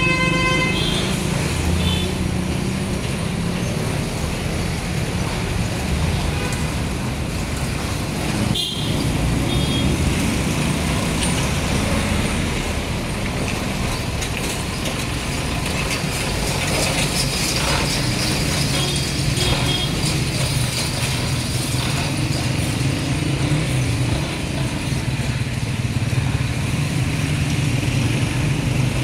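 Street traffic noise: motorcycle and vehicle engines running steadily, with a few short high beeps.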